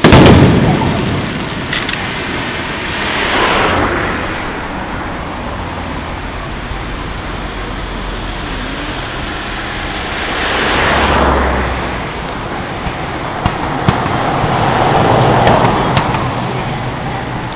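A firework shell bursts with a loud boom right at the start. Then cars pass on the road three times, each a swell of tyre and engine noise that rises and fades, the middle one with a deep rumble. A few faint sharp pops of fireworks come near the end.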